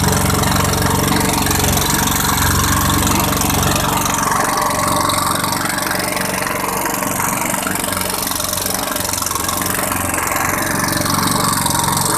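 Boat engine running steadily at a constant speed, with a broad, even hiss over it.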